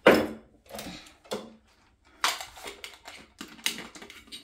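An ice-filled water bottle being handled and its lid screwed on: a string of sharp clicks and knocks, the loudest right at the start, with about five more spread over the next few seconds.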